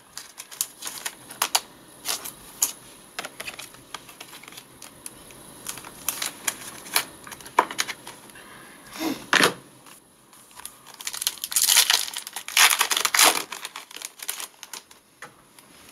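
Trading cards and plastic sleeves being handled, with many small clicks and rustles, then a foil card pack torn open and crinkled about eleven seconds in, the loudest part.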